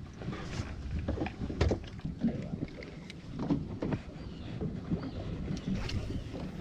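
Small fishing boat adrift: water sloshing against the hull, with irregular knocks and clatter on board.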